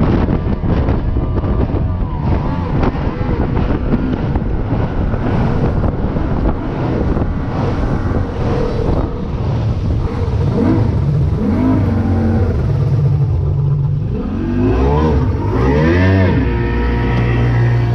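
225 hp outboard motor on an aluminum boat running hard, with wind and water rush; in the last few seconds its pitch rises and falls several times as the throttle and load change.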